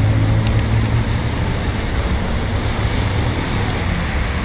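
Street traffic: cars driving past close by, a steady mix of engine and tyre noise, with a low engine hum strongest at the start that eases off as a vehicle passes.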